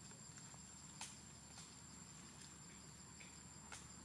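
Faint outdoor ambience: an insect gives a thin, steady, high-pitched tone throughout, with a few faint clicks about a second in and again near the end.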